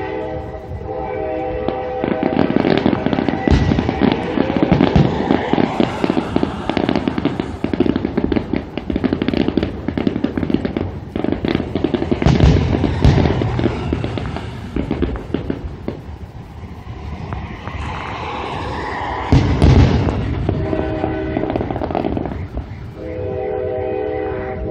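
Aerial fireworks bursting: dense crackling with heavy booms about halfway through and again near the end. A steady multi-tone horn blows at the very start and twice more near the end.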